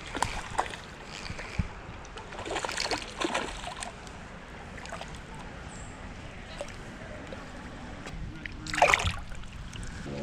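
Creek water running, with irregular splashes and a louder splash about nine seconds in.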